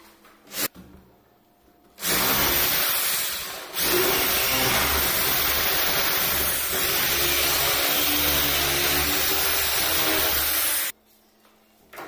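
Electric drill boring into the edge of a wooden door to cut out a lock mortise. There is a brief blip of the trigger near the start, a short run about two seconds in, then one long steady run of about seven seconds that stops about a second before the end.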